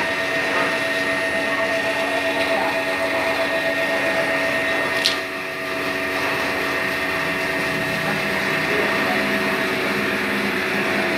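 A large motor-driven machine running steadily, with a constant whine made of several steady tones over a broad hum. A single sharp click comes about five seconds in, and the level dips briefly after it.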